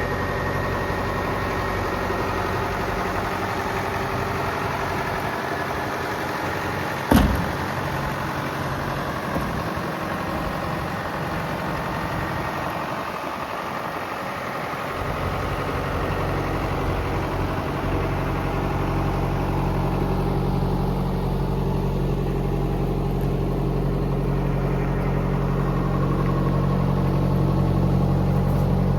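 Hitachi EX120-5 excavator's diesel engine running steadily, with one sharp loud clank about seven seconds in. Halfway through the engine note grows deeper and louder and stays that way.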